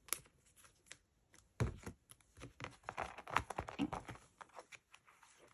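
Clear plastic photocard sleeves and binder pocket pages crinkling and rustling as cards are handled and slid into the pockets: a run of short, irregular crackles.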